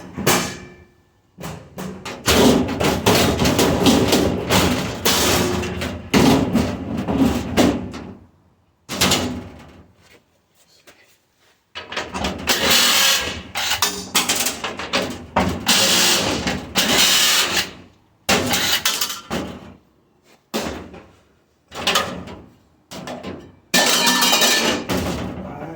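Stainless steel dishwasher panels and parts being hammered and pried apart: repeated loud metal bangs and clattering in bursts with short pauses.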